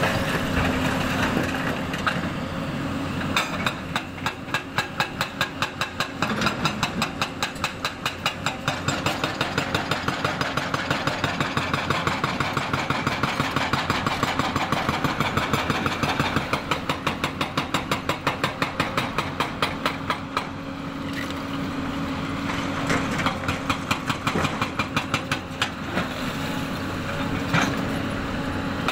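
Diesel engines of a Hyundai crawler excavator and a dump truck running steadily, with a rapid, even clatter throughout.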